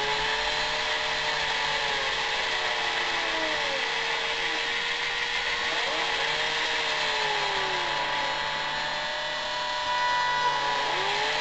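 Two electric drill motors used as a robot's drive motors, running under gamepad control. Their whine rises and falls in pitch as the stick speeds them up and slows them down, with one motor braked against the other for tank steering.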